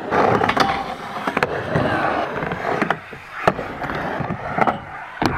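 Skateboard wheels rolling over the skatepark's ramps, with a few sharp clacks of the board hitting the surface.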